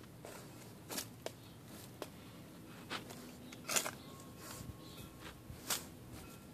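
A dog digging in loose, gravelly dirt with its front paws: irregular scratching and scraping strokes, the loudest about a second in, around three to four seconds in, and near the end.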